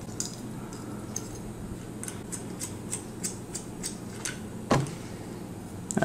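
Small sharp metal clicks of an AK magazine's steel base plate working in the slot of a flathead screw as it turns the screw loose, with one duller knock near the end.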